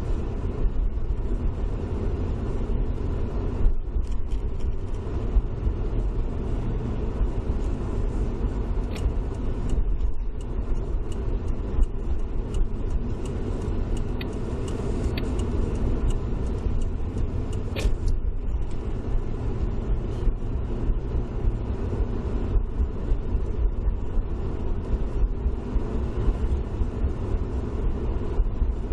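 Car driving on a wet road in the rain, heard from inside the cabin through a dash cam: a steady low rumble of tyres and engine, with many scattered clicks.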